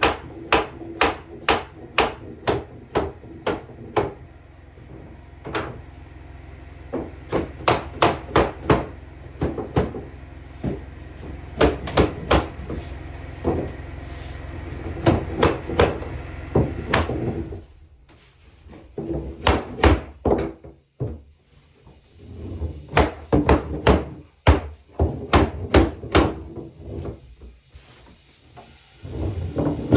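Hammer striking wood in runs of quick blows with short pauses between them. A steady low hum runs underneath and stops a little past halfway.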